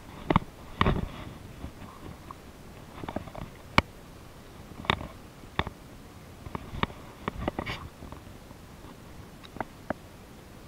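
Irregular clicks and knocks from handling a baitcasting rod and reel, with one especially sharp click about four seconds in.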